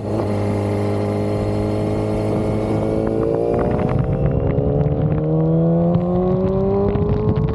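Yamaha YZF-R6 inline-four engine heard from the rider's seat, running under throttle. About three seconds in the pitch steps down with an upshift, then rises steadily as the bike accelerates.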